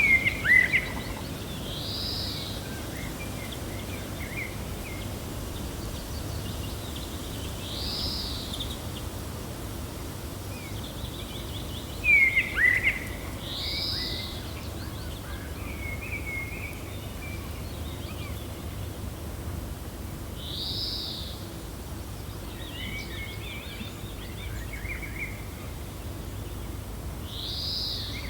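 Woodland birds chirping over a steady low wind rumble. A short arched high-pitched call repeats about every six seconds, with scattered twitters between, and two louder sharp chirps near the start and about twelve seconds in.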